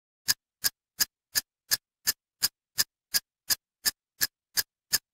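A ticking sound effect: fourteen sharp, evenly spaced clicks, about three a second, with silence between them.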